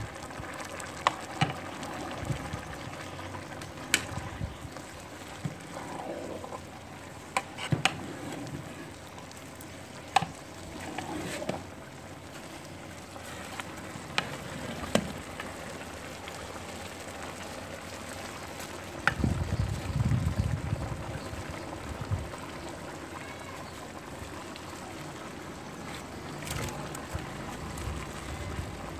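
Cooking pot of liquid bubbling steadily, with scattered sharp clinks and knocks throughout and a brief low rumble about two-thirds of the way in.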